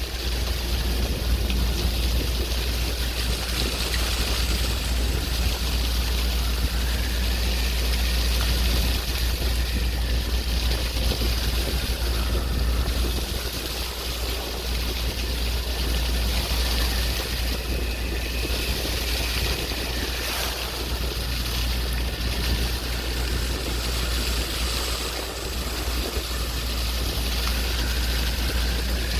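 Steady wash of sea waves with a heavy low rumble underneath.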